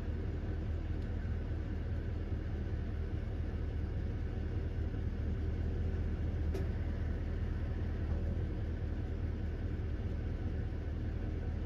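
A steady low engine rumble with an even hiss above it.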